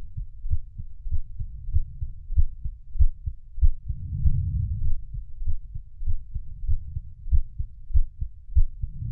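Human heartbeat: slow, steady low thumps in a lub-dub rhythm, a strong beat a little more often than once a second. A low rumbling swell rises and fades under the beats about every four and a half seconds, near the middle and again at the end.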